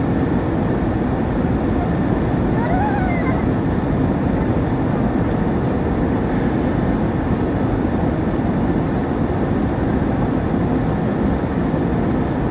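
Steady airliner cabin noise on descent: jet engines and rushing airflow heard from inside the cabin, with a faint steady high whine.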